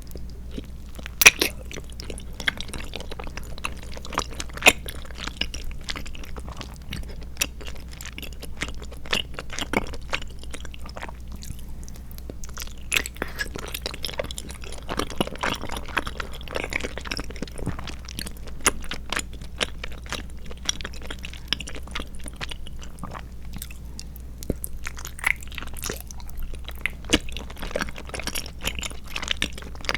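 Close-miked chewing of tapioca pearls (boba) and milk jelly: wet, squishy mouth sounds with many irregular sharp clicks, two louder ones in the first five seconds, over a faint steady low hum.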